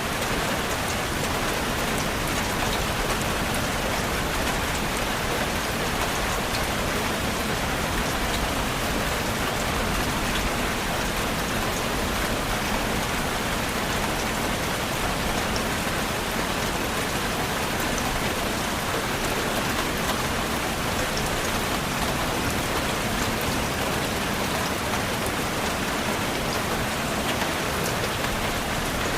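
Steady rain falling, an even hiss with scattered drop ticks and no change in intensity.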